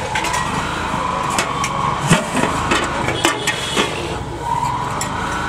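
Busy street noise with a vehicle engine running, over scattered metallic clinks and knocks of a steel ladle against big steel pots and plates as curry is served; background voices in the mix.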